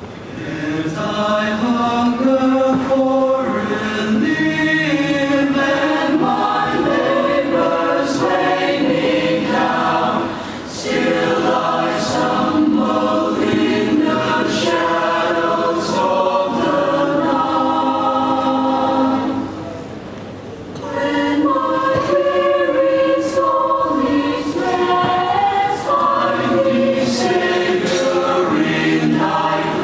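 Mixed choir of men and women singing in harmony, with two short breaks between phrases, around ten and twenty seconds in.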